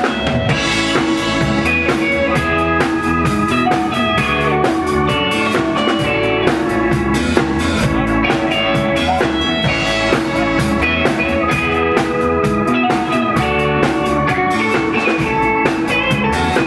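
Live ska band playing an instrumental passage between sung verses: drum kit keeping a steady beat under guitar and a held melody line.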